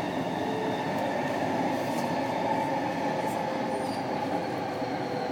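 Inside a moving SkyTrain car: steady running noise of the train, with a faint high whine.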